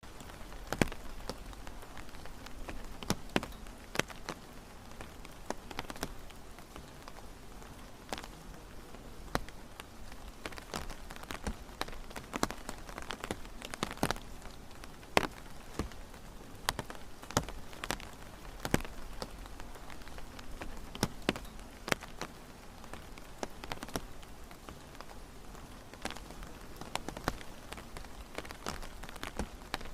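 Rain falling steadily, with frequent irregular sharp taps of individual drops hitting a surface close by.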